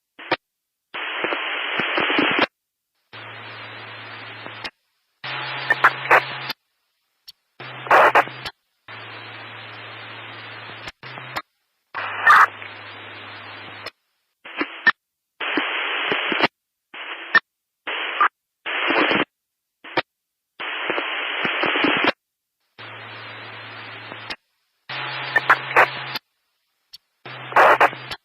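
Static noise hissing in bursts that cut in and out every second or two, with short silent gaps between them. Louder crackly bursts with sharp clicks alternate with quieter stretches of hiss over a low hum.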